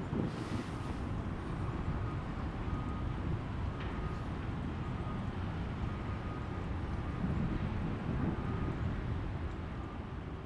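Wind buffeting the microphone, a steady low rumble outdoors. A faint high tone comes and goes about once a second behind it.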